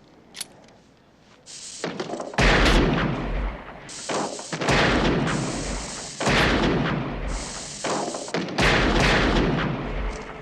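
A run of revolver shots on a combat range. Loud, echoing reports come roughly every two seconds, with smaller shots between them, starting about a second and a half in after a few faint clicks.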